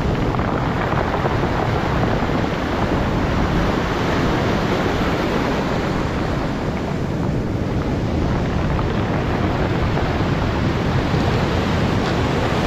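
Ocean surf breaking and foaming up the shore in a steady rush, with wind buffeting the microphone.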